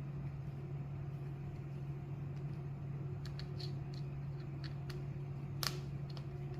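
Light clicks and taps of a screwdriver and small screws on the plastic clipper housing as the body is screwed back together, the sharpest about five and a half seconds in, over a steady low hum.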